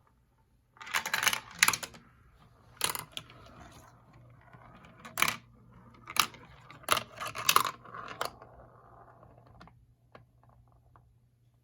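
Glass marbles rolling and clattering down a plastic marble run track: a string of sharp clacks over a faint rolling rustle, thinning to a few light ticks near the end.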